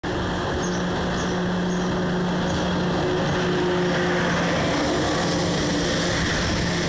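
TGV Réseau Duplex electric power car pulling out at low speed and passing close by: a steady mechanical hum with low, even tones. A brighter, higher sound joins about four seconds in as the power car draws level.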